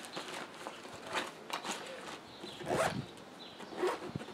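Zipper on a small nylon backpack (Mil-Tec assault pack) being pulled shut in several short strokes, the loudest about three seconds in.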